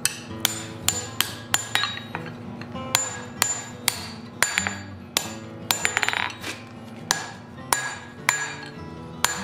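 Hand hammer striking red-hot steel on an anvil, about two blows a second with lighter taps between, each blow leaving a short metallic ring: hot-forging and shaping the upper part of a pair of box jaw tongs.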